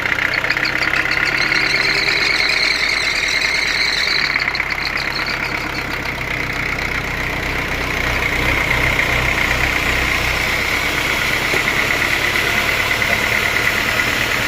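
Sawmill machinery running steadily: an engine-like hum with a high whine on top.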